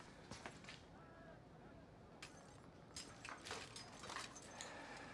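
Near silence: quiet room tone with a few faint rustles and soft clicks.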